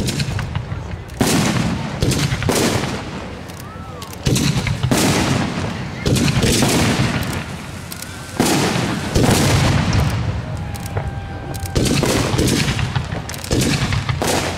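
Aerial firework shells bursting in quick succession, a loud boom roughly every second, each trailing off before the next.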